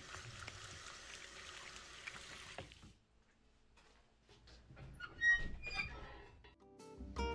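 Tap water running into a bathroom sink, shut off about three seconds in. A few light knocks and clicks follow, the sharpest about halfway through, then music begins near the end.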